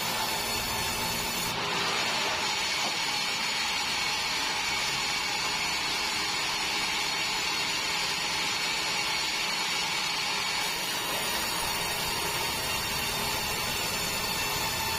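Band sawmill running steadily. Its tone shifts about two seconds in and shifts back near eleven seconds.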